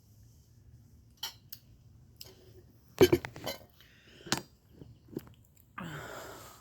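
Close-up eating noises: scattered clicks and crunches of chewing and handling food, loudest about three seconds in, then a short hiss near the end.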